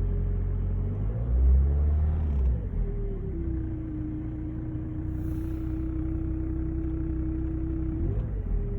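Renault Mégane III diesel engine running with a steady droning hum over a low rumble; the hum swells with the rumble about a second in, settles to a slightly lower steady pitch from about three seconds, and steps back up near the end. This is the strange hum the owner hears at idle and on the move that goes away in warm weather.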